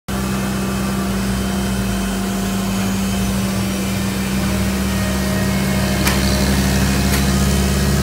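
Steady mechanical drone of aircraft ground machinery running beside a parked Boeing 747, a constant low hum with a strong single tone. Two light clicks come about six and seven seconds in.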